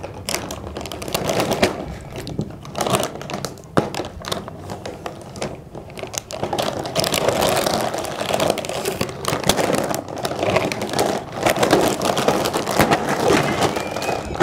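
Plastic Kurkure snack packets crinkling and crackling in quick, irregular bursts as they are bitten, gripped and tugged with the teeth to tear them open. The rustling grows fuller about halfway through, as the bags are lifted and shaken by mouth.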